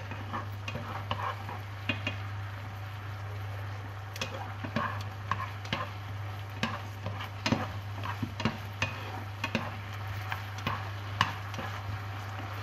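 Chicken pieces sizzling in a bubbling fish-sauce and sugar glaze in a nonstick frying pan, with frequent irregular clicks and scrapes as wooden chopsticks stir and turn them. A steady low hum runs underneath.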